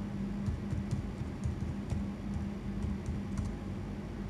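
Computer keyboard keys tapped out in a short, irregular run of keystrokes as a command is typed into a terminal, over a steady low hum.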